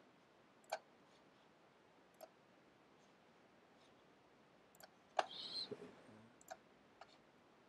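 Computer mouse clicking a handful of times, single sharp clicks spaced well apart, with a slightly longer, busier sound about five seconds in. Otherwise near-silent room tone.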